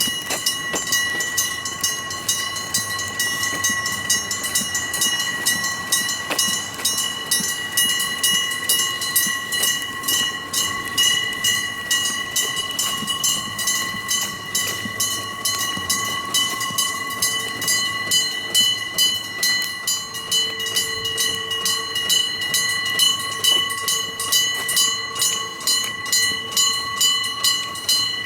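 Six electric-bell level-crossing warning signals ringing together: rapid, continuous clanging of clappers on bells, the overlapping strokes pulsing against each other.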